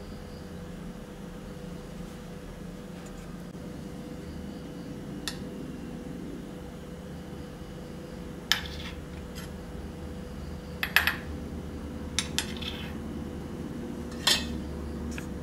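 Steel spoon clinking and scraping against a stainless steel tumbler as wheat-flour mixture is packed into it: about eight short, sharp clinks, scattered over the last ten seconds, over a steady low hum.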